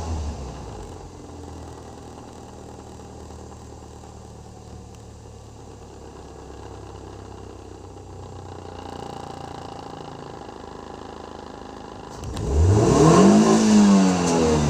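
2008 Toyota Vios's 2NZ four-cylinder petrol engine on a test run after a wiring repair for misfiring. The revs drop back to a steady idle at the start. About twelve seconds in, the throttle is blipped once: a quick rise in revs that falls back.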